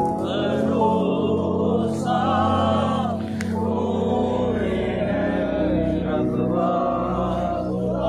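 A hymn sung by a group of voices, with a steady low held accompaniment underneath.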